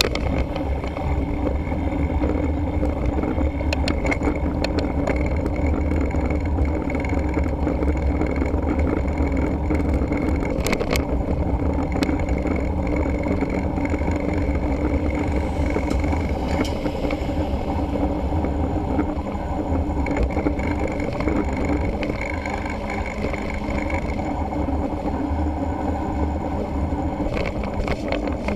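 Wind buffeting the microphone of a camera mounted on a moving mountain bike, over steady tyre and road rumble, with a few sharp rattling clicks.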